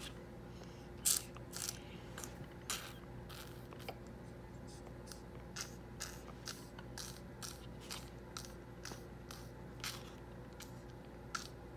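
A toddler eating orange: a string of short, irregular wet mouth clicks and smacks, about two a second, the loudest about a second in.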